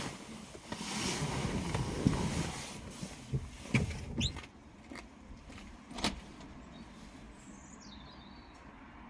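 Handling and movement noises: rustling for the first few seconds, a few sharp knocks and a short squeak about four seconds in, one more knock about six seconds in, then only faint background.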